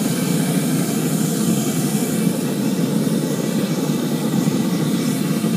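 Used-cooking-oil-fired foundry furnace running while melting brass: the burner gives a steady, even roar with no rhythm or change.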